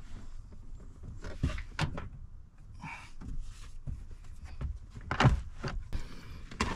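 Irregular knocks and thunks of things being handled and set against hard surfaces, with a brief rustle in the middle; the loudest knocks come a little past halfway.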